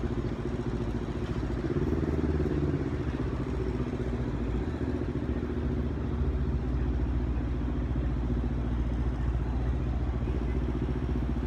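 Steady city street traffic, with vehicle engines giving a continuous low hum.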